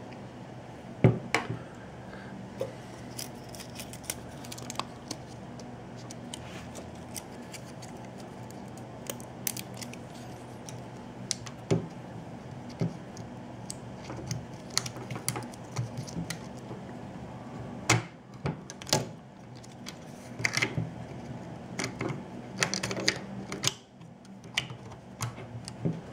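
Scattered small metal clicks and handling noise from a Meopta Optineta 35mm camera held with its back open while film is threaded across the gate onto the spools. The clicks come irregularly, with sharper ones about a second in and near the middle and a busier run in the last third, over a steady low hum.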